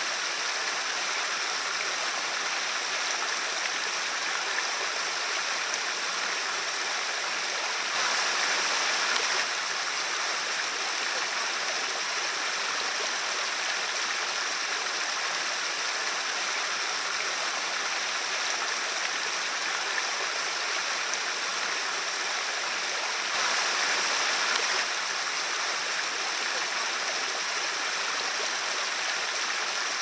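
Small rocky stream running over boulders and splashing down little cascades: a steady rush of water. It grows briefly louder twice, about eight and twenty-four seconds in.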